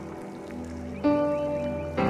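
Background music: held chords, with a new chord struck about halfway through.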